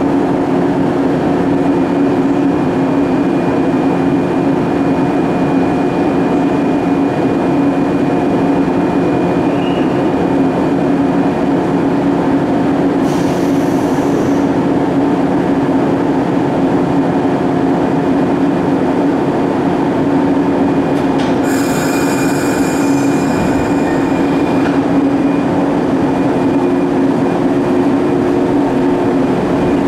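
JR 115 series electric train standing at the platform, its underfloor equipment giving a steady, even hum with several fixed tones. Two brief hisses break in, one about 13 seconds in and a longer one around 22 seconds.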